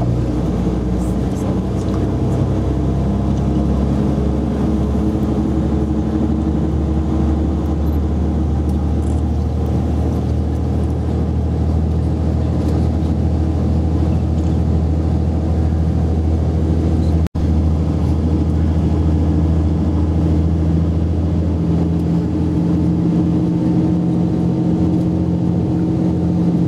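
Tour bus engine heard from inside the cabin, running steadily under load as the bus climbs a steep mountain road, its pitch shifting slightly a few times. The sound cuts out for an instant about two-thirds of the way through.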